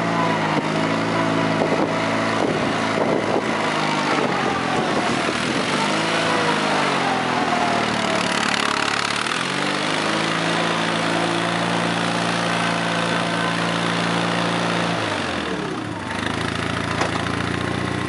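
1992 New Holland L250 skid steer loader's engine running, its speed dipping and rising a few times, then held high for several seconds before dropping back to a lower steady speed near the end. A thinner whine rises and falls along with the engine speed.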